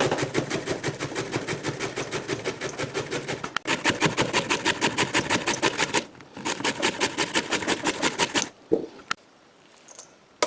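Zucchini being grated on a stainless steel box grater standing in a metal bowl: quick, even rasping strokes in three runs, the last stopping about eight and a half seconds in.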